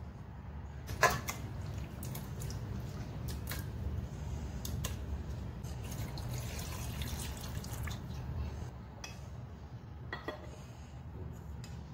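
Veal pieces knocking into an aluminium pressure cooker, with a sharp ringing metal clink about a second in, then water poured over the meat for a couple of seconds and another clink near the end.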